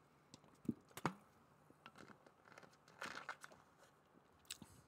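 Faint handling noise at a desk microphone: a couple of soft clicks about a second in, then a short crinkly rustle around three seconds in, over quiet room tone.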